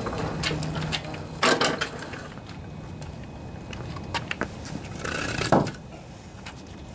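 Snapper walk-behind mower being turned and rolled about on a concrete floor, its wheels and body rattling and knocking, with a sharp knock about a second and a half in. Near the end a wooden block is set down on the concrete with a knock.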